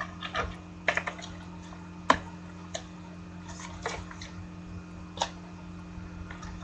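Trading cards being handled: a few separate small clicks and taps, about one a second, over a faint steady low hum.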